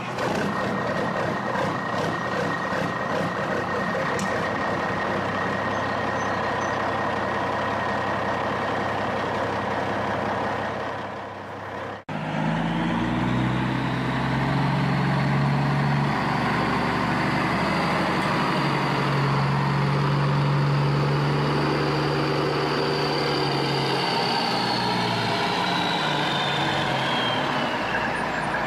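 Heavy truck engine running steadily. It cuts out abruptly about twelve seconds in, then runs again with a stronger low hum and a high whine that falls away near the end.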